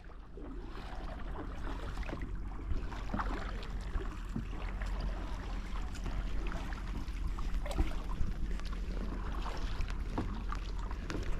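Kayak paddles dipping and splashing in the water, with a steady low wind rumble on the microphone.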